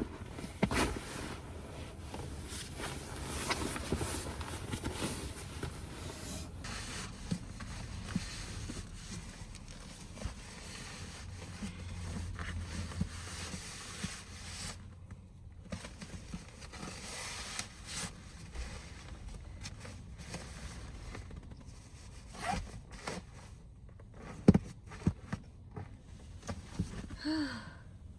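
Rustling and scraping handling noises with scattered light clicks, and a few sharper knocks near the end.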